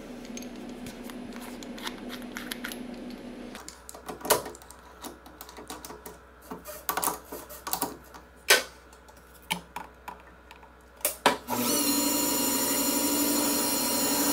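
Sharp metallic clicks and knocks as a chuck key tightens a small aluminum part in a metal lathe's chuck. About eleven and a half seconds in, the lathe starts and runs with a steady whine as a drill bit bores into the spinning part, throwing a long chip.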